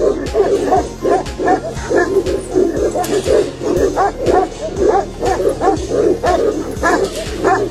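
Tibetan mastiff barking in quick repeated barks, about two a second. Background music with a steady beat runs underneath.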